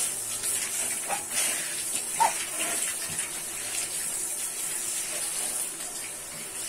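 Water spraying from a handheld shower head onto a small wet dog and the bathtub floor, a steady hiss of running water.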